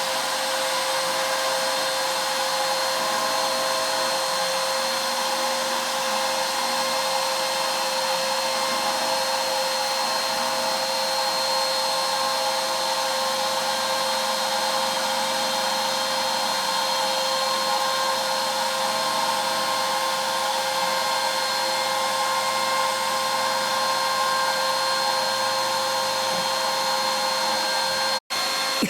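CNC router spindle running steadily while milling a walnut board, a constant high whine over a hiss. The sound drops out briefly just before the end.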